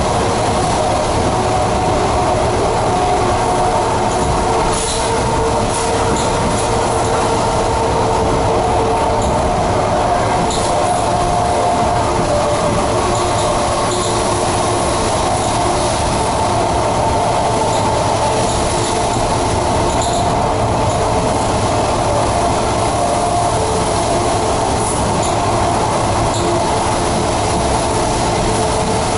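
ED4MK electric multiple unit running between stations, heard from inside a passenger car: a steady rumble of wheels on the rails with a mid-pitched whine and a few faint clicks.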